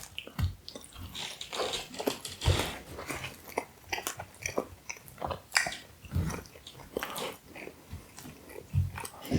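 Close-miked mouth sounds of someone chewing a soft Cinnabon mini roll: irregular wet clicks and smacks, with a few dull low thumps.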